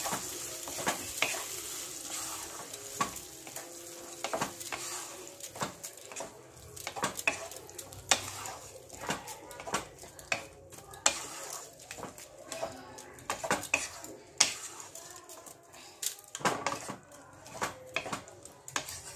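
Spatula stirring and scraping a thick masala with yogurt in a non-stick kadai, with frequent short knocks against the pan. A soft sizzle is strongest at the start and fades, the flame turned low so the yogurt doesn't split.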